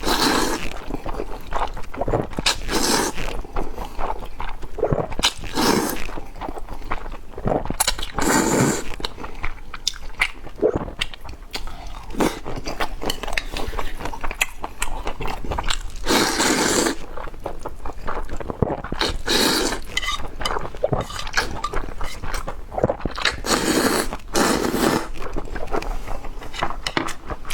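Person eating: chewing and biting food, with irregular louder bursts of crunching noise every few seconds.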